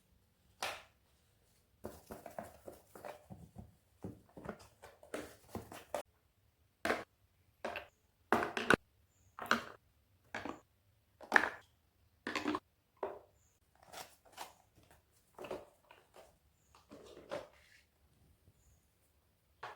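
Irregular knocks and taps, a dozen or more separate strikes with short pauses between, as of objects being handled and set down.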